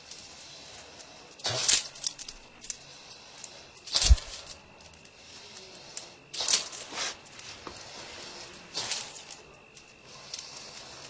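Short breathy hisses from a jhakri shaman blowing out during a ritual divination, four times about two and a half seconds apart. A low thump comes with the second hiss.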